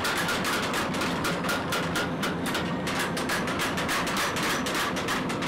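Mechanical power hammer pounding a red-hot steel knife blank in rapid, steady blows, several a second, over the running noise of the machine.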